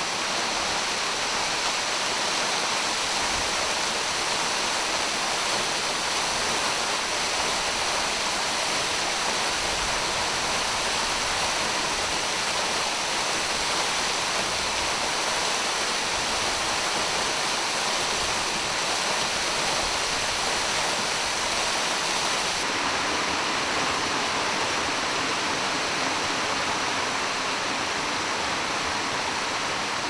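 Steady rushing of a tall, slender waterfall pouring down a rock face and splashing into a plunge pool. About two-thirds of the way through, the rush shifts slightly in tone as the water heard becomes a cascade sliding down a sloping rock slab.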